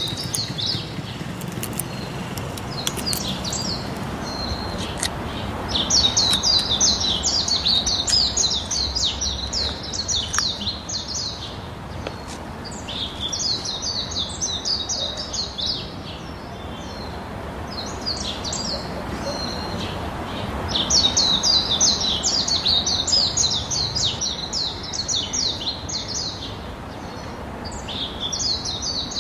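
Birds chirping and singing in repeated bursts of rapid high chirps, several seconds each, with short pauses between, over a faint steady background hum.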